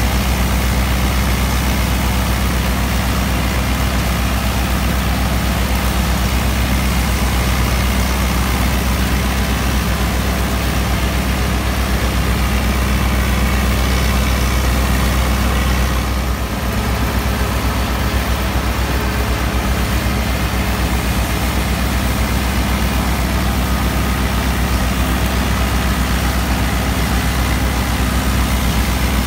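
New Holland Dabung 85 tractor's 85 hp four-cylinder diesel engine running steadily under load, driving a PTO-powered wheat straw chopper, with a brief dip in level about halfway through.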